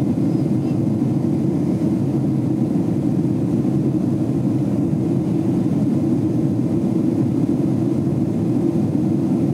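Steady cabin drone of a Boeing 767 climbing after takeoff: engine and airflow noise heard from a window seat behind the wing, low and even.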